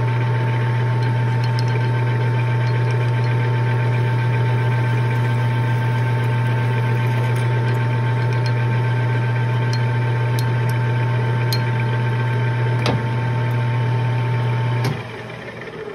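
Metal lathe running steadily with a deep motor hum and a thin whine while a 5/16-inch drill bit in the tailstock chuck drills into the spinning shock reservoir cap, with a few light ticks from the cutting. About fifteen seconds in the lathe is switched off and the sound dies away as it spins down.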